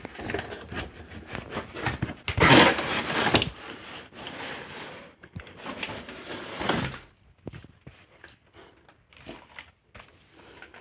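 Unpacking a box fan: the cardboard box and packing scrape and rustle, with a loud sliding scrape about two and a half seconds in and a shorter one near the middle, then scattered light knocks and rustles.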